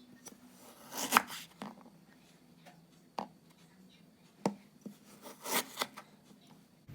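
Food and utensil handling: a few irregular sharp clicks and knocks with brief rustling between them, the loudest about a second in.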